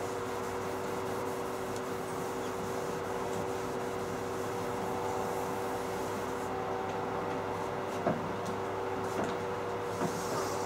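A chalkboard being wiped with a cloth: soft rubbing over a steady machine hum, with a few light knocks near the end.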